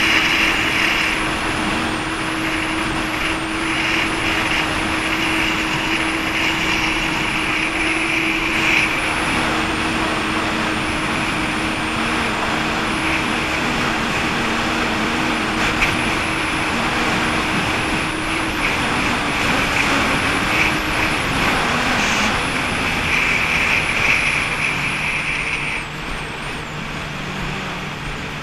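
Jet ski engine running steadily at idle, its hum dropping to a lower note about three-quarters of the way through and a little quieter near the end, over a constant hiss.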